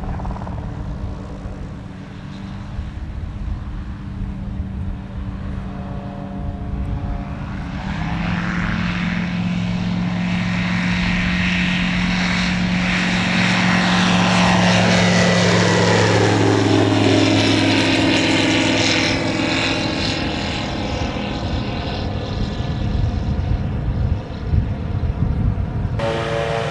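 Jet Fox light sport aircraft's Rotax 912S engine and propeller droning in a low flyby. It grows louder as the aircraft approaches, then drops in pitch as it passes, about two-thirds of the way in.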